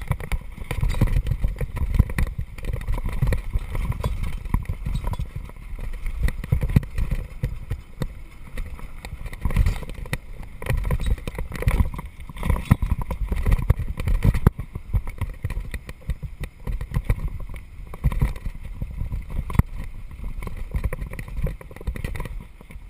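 Downhill mountain bike rolling fast over a loose gravel track: a continuous low rumble of tyres on stones, with irregular knocks and rattles from the bike as it hits rocks.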